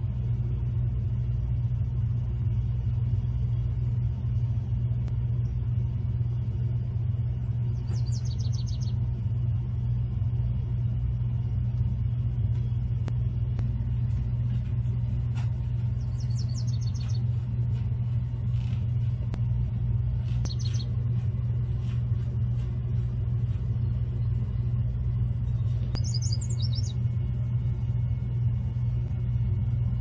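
A yellow warbler sings about four short, high, quick phrases, spaced several seconds apart, over a loud steady low hum.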